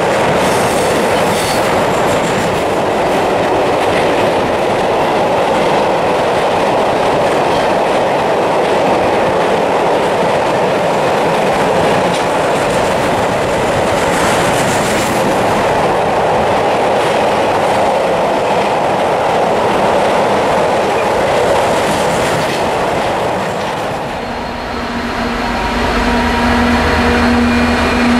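Freight wagons rolling past at speed close by: a steady rumble of wheels on rail with clickety-clack and a few brief high squeals. About four-fifths of the way through it gives way to an approaching Class 66 diesel locomotive, its two-stroke V12 engine running with a steady droning note over a low throb.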